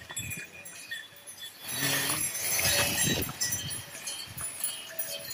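Pack ponies and mules on a stony mountain trail: uneven hoof and foot steps with a light clink of harness bells, busier and louder from about two seconds in.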